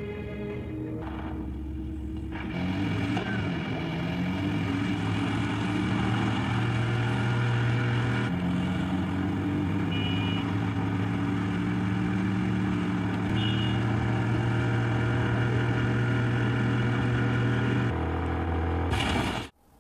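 Vehicle engine running steadily, a low droning hum that grows louder a few seconds in and cuts off suddenly near the end.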